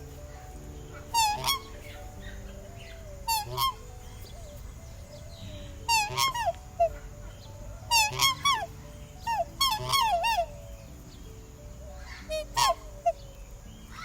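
A bird calling repeatedly: short, pitched calls in quick groups of two to four, every couple of seconds.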